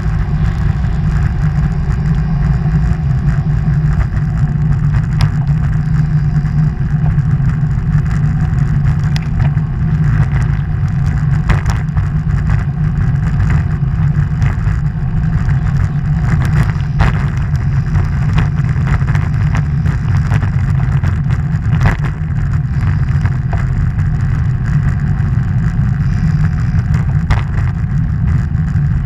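Steady, heavy low rumble of wind buffeting an action camera's microphone on the move, with a few sharp knocks from bumps in the road.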